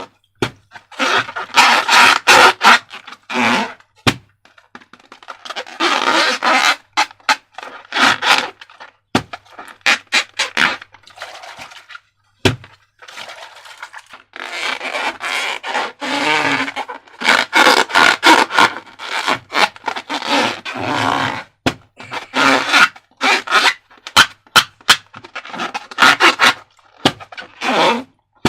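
Hands working slime and rubber balloons: irregular scraping and squishing in bursts, broken by many sharp clicks and knocks.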